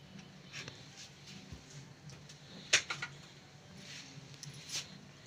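Muslin cloth being unwrapped and pulled back from a bundle of thick hung curd: soft rustling and handling, with a few brief clicks, the loudest a little under three seconds in.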